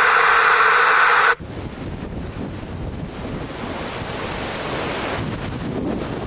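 Hurricane-force wind and surf noise. A loud, steady roar of wind hitting the microphone cuts off abruptly about a second in, giving way to a lower rushing of storm wind that slowly swells.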